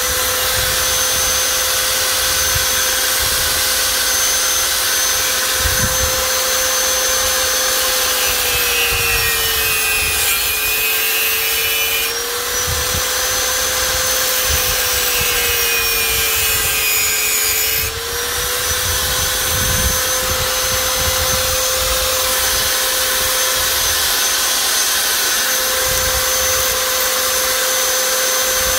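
A small high-speed power tool runs continuously with a steady whine. Twice the pitch sags for a few seconds while a scratchy grinding sound joins in, as the tool bears into the work, then recovers when the contact stops.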